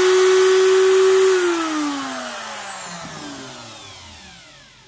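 Chicago Electric 3-inch electric cut-off tool's brushed motor running free at full speed with a steady high whine, then switched off about a second and a half in and spinning down, the whine falling steadily in pitch and fading.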